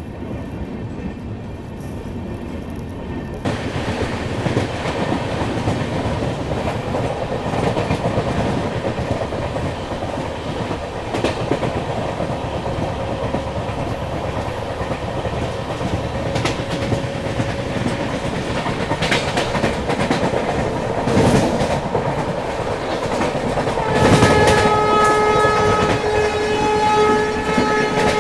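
Rumble and rail clatter of a fast-running passenger train, heard from an open coach door, growing louder a few seconds in. Near the end a train horn sounds one steady note for about four seconds.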